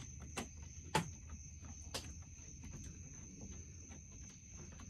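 A few light clicks and knocks of tools and chainsaw parts being handled while screws are started into the handlebar and top cover of a Husqvarna 1100 chainsaw, the sharpest about a second in. A steady high-pitched chirring of crickets runs underneath.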